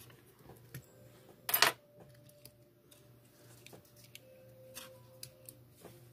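Light clicks and taps of a small plastic-and-metal model locomotive being handled on a silicone work mat, with one louder, brief scratchy noise about a second and a half in. A faint steady hum runs underneath.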